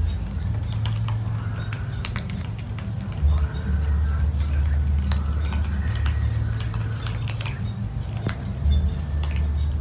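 Several cats crunching dry kibble: scattered sharp clicks of chewing and pellets, over a steady low rumble.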